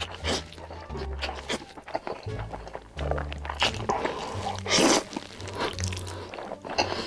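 Background music with a repeating bass line over a man slurping and eating a long mouthful of saucy spicy noodles, with short wet slurps throughout and one loud, long slurp about five seconds in.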